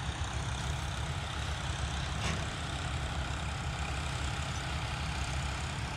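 John Deere 5310 tractor working a gearbox-driven super seeder through the field, heard from a distance as a steady low engine drone with no change in pitch. The tractor runs quietly under this load.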